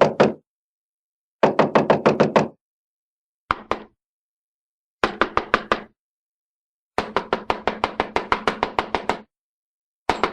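Cartoon sound-effect knocking on a door: separate bursts of rapid knocks, about eight a second, with short silences between them. The longest run goes on for about two seconds past the middle.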